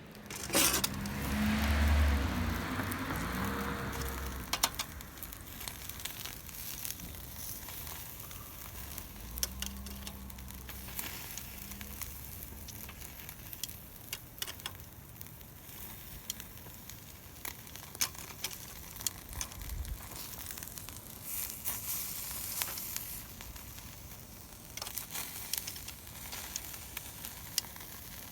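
Meat sizzling on a grill over a small wood-burning fire pit, with scattered pops and crackles throughout. A louder surge of hissing comes in the first few seconds.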